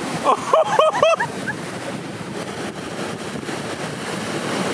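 Heavy hurricane-swell surf breaking and washing on a sandbar beach, a steady rush of whitewater. About half a second in comes a quick run of four or five short, high, rising-and-falling calls.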